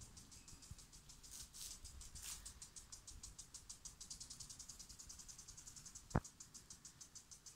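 Insects chirping faintly in a fast, even, high-pitched pulse. A single sharp click stands out near the end.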